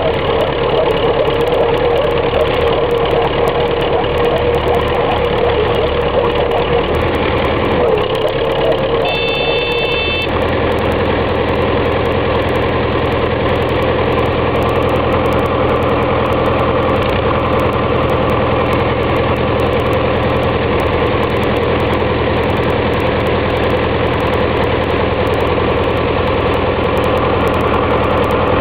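Tractor diesel engine running steadily, its note shifting about ten seconds in, from a tractor with a log-loading crane stuck in deep mud.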